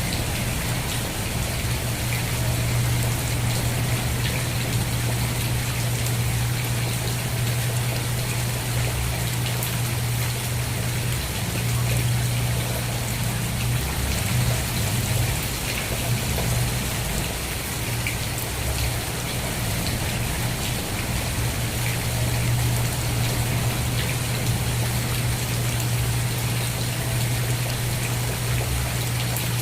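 Steady rain falling, an even hiss with scattered drops, over a constant low hum.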